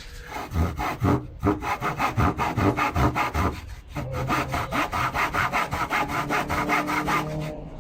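Hand saw, an old wood saw freshly sharpened, cutting through wood in quick rasping strokes, with a short pause just before the middle; it cuts easily now that the teeth are sharp again.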